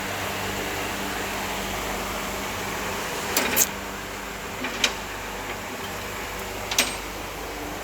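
Steady workshop hum, broken by a few sharp tool clicks on metal: a quick pair about three and a half seconds in, another about five seconds in and one near seven seconds.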